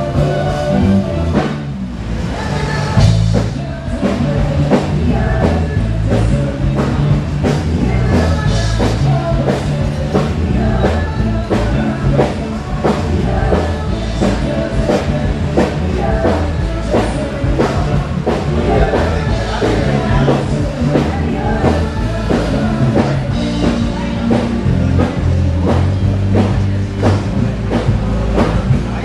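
Rock band playing a song with a drum kit and a singer.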